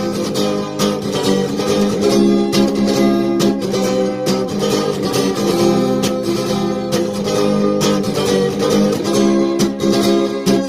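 Acoustic guitar strummed in a steady rhythm, ringing chords with no voice.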